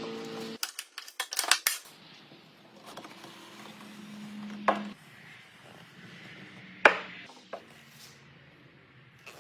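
Sharp knocks and clicks of hard objects: several close together in the first two seconds, another near the middle, and the loudest about seven seconds in.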